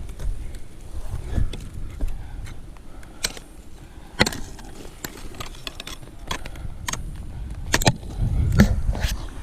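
A few sharp, irregular knocks, the clearest about four seconds in and three more near the end, over low rumbling noise on the microphone.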